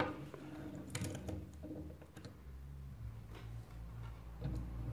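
A Hot Wheels Ride-Ons toy wheelchair and a small plastic action figure handled on a wooden tabletop: a few light plastic clicks and taps. A low steady hum comes in about halfway.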